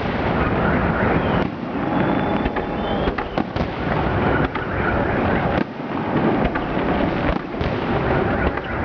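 Fireworks display: a continuous run of bangs and crackles in quick succession, with a faint brief whistle about two seconds in.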